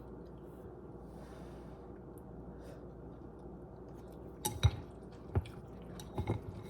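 Quiet room hum, then a few sharp clinks and knocks of tableware, with the loudest about two-thirds of the way through.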